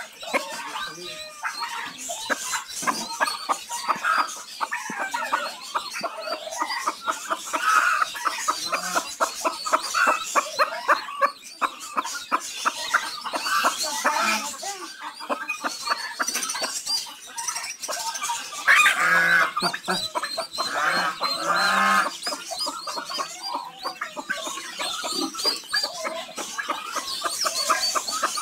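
A brood of chicks peeping continuously while a mother hen clucks, her clucks loudest a bit past the middle.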